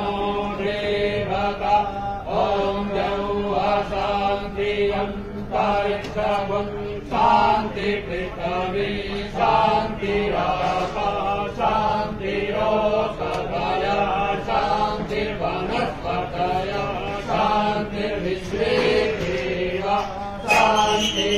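Hindu devotional mantra chanting: a continuous rhythmic recitation over a steady low drone.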